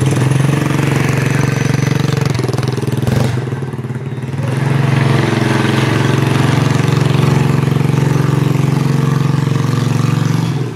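Homemade monowheel's motor running steadily as it is ridden, easing off briefly about four seconds in and then picking up again.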